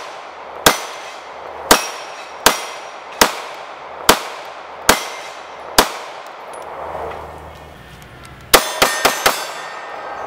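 TriStar T-100 9mm pistol firing: seven shots at a steady pace about a second apart, then after a short pause four quick shots in under a second, each with a ringing echo. It is cycling and feeding from a standard CZ-75 magazine.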